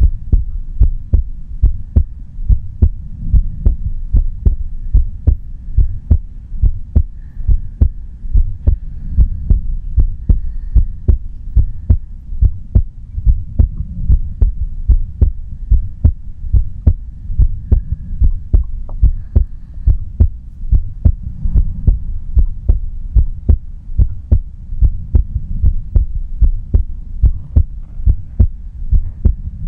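A woman's heartbeat heard close up: a steady, even rhythm of low thuds.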